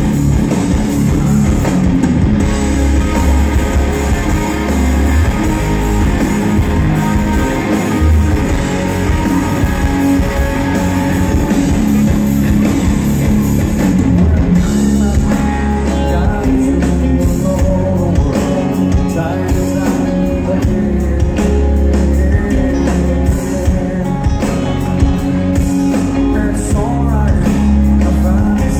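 A live rock band playing loudly through a concert sound system, with electric guitar, a drum kit and a singer's voice, heard from within the crowd.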